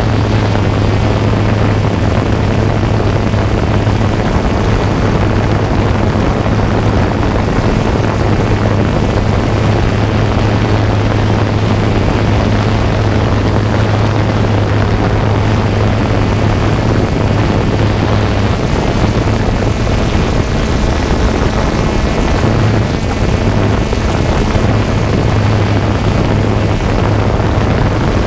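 Quadcopter drone's motors and propellers whirring steadily: a constant low hum over a wash of rushing noise, heard close up from the drone's own camera.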